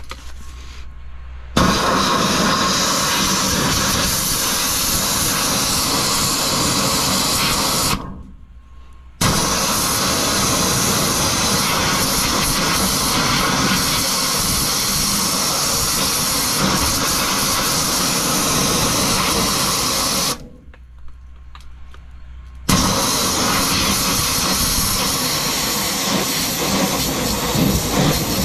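High-pressure water from a drain jetter's hand-held pressure gun hissing as it blasts down a sewer inspection riser, clearing fine tree roots from the junction. The spray starts about a second and a half in, stops briefly around eight seconds and again around twenty seconds, then starts again each time.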